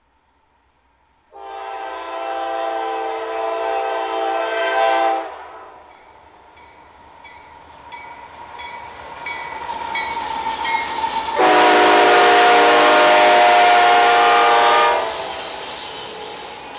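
Locomotive multi-chime air horn sounding two long blasts, the second louder. Between them comes the rising rumble and clatter of the approaching train.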